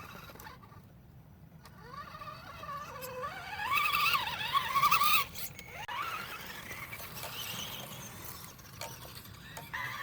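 RC truck's 27-turn brushed electric motor and drivetrain whining, the pitch rising and falling with the throttle, loudest about four to five seconds in.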